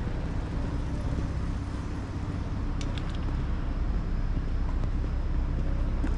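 City street traffic noise: a steady rumble of passing road vehicles.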